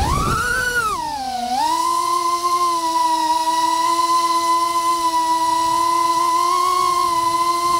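FPV quadcopter's motors and propellers whining as it hovers low and comes in to land. The pitch swoops up and then down in the first second and a half with the throttle, then holds steady.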